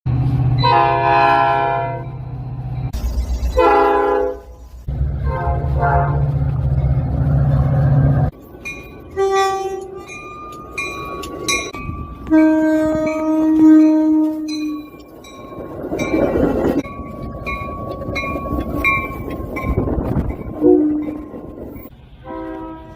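Train horns sounding in a string of blasts and chords of different pitches, some long and some short, changing abruptly from one to the next. A low train rumble runs under the first few.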